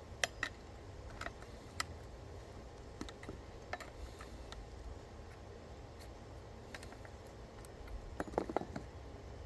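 Faint, scattered light clicks and taps over a low background hum, with a short cluster of sharper clicks near the end.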